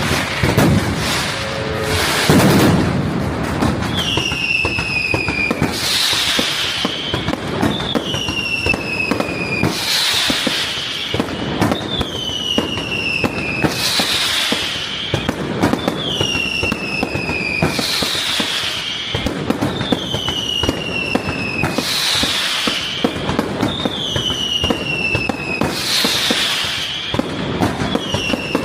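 Fireworks display set to music: bangs and crackling bursts in a steady rhythm about every two seconds, each preceded by a high falling whistle-like tone.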